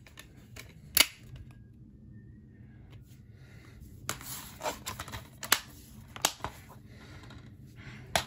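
Clicks and knocks of a plastic DVD case being handled: a sharp click about a second in as the disc is pressed onto the case's centre hub, then after a short quiet spell a series of lighter clicks and taps as the case is closed and moved on a wooden table.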